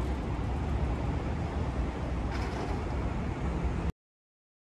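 Steady city traffic rumble outside a station at night, with a brief swell of hiss about two and a half seconds in; it cuts off suddenly near the end.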